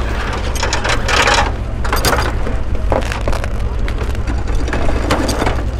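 Black plastic body bag rustling in several short bursts as it is handled and spread out, over a steady low rumble and muffled voices.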